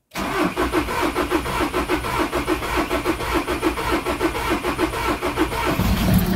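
Starter motor cranking a VW 2.0 TDI (CBDC) common-rail diesel, heard from inside the cabin, in an even rhythm of about four pulses a second for about five and a half seconds. Near the end the engine catches and settles into a diesel idle. This is the first start after an intake manifold repair and fuel priming.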